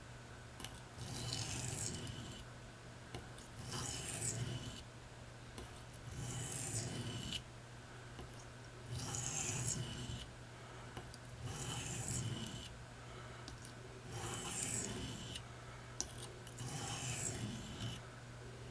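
Pocketknife blade stroked across a wet Norton IB8 combination oilstone, sharpening one side to raise a burr: slow scraping strokes, about one every two and a half seconds, seven in all. A steady low hum runs underneath.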